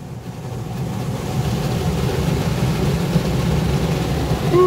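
Water from a burst pipe pouring onto a car's windscreen and roof, heard from inside the cabin as a steady low rushing noise that swells over the first second or so. A brief voice comes in at the very end.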